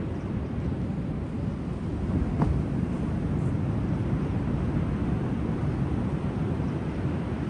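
Steady low outdoor rumble at the seashore, mostly wind buffeting the microphone, with one brief faint knock about two and a half seconds in.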